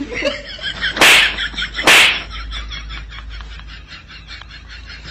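Two loud, sharp slaps about a second apart, over a background of steady high chirping.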